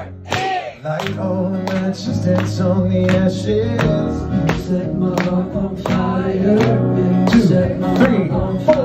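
Acoustic guitar strummed in a steady rhythm, about two strokes a second, with a man singing at times.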